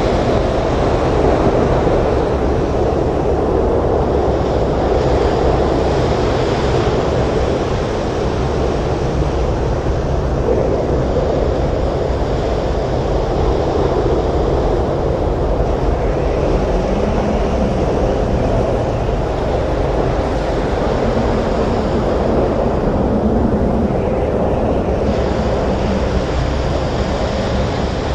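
Storm surf breaking and washing on a beach, mixed with gusting wind: a loud, continuous rushing noise that swells and eases a little without a break.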